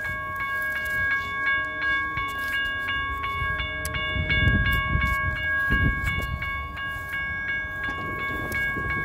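Railroad crossing warning bell ringing continuously in quick, even strokes while the crossing stays activated with no train, its gate arm stuck on the overhead lights. Low rumbling thumps come through about halfway.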